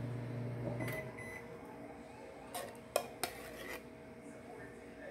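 Microwave oven running with a steady hum that stops about a second in, followed by two short beeps. Then come a few sharp clinks of a metal spoon against a can of nacho cheese.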